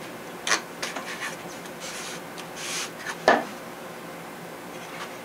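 Hands rubbing and pressing masking tape down on a balsa model-airplane fuselage, with a few short scratchy rubs and a sharp knock a little over three seconds in.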